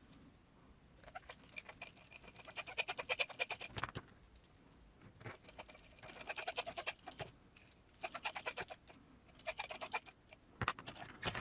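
Screwdriver driving M3x8 button head screws into the chassis parts, heard as five short runs of rapid clicking and grinding, each a second or so long, with pauses between them.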